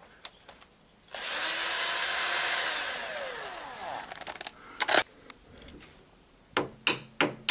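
Cordless drill running for about three seconds, spinning out a transmission oil pan bolt, its pitch dropping as it winds down. A couple of clicks follow, then near the end a hammer begins tapping steadily, about three blows a second, on a screwdriver wedged into the pan seam to break a gasket of old dried sealant.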